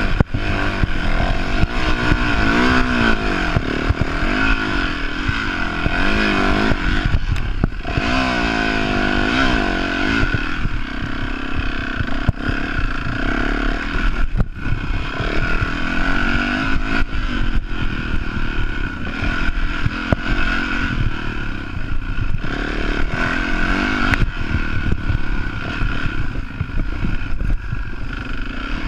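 Enduro dirt bike engine revving up and down as it is ridden over rough ground, its pitch rising and falling every second or two, with scattered knocks and rattles from the bike.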